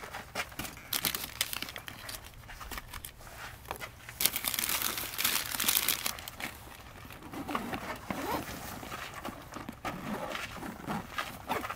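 Crinkling and rustling handling noise with irregular small clicks, loudest about four to six seconds in.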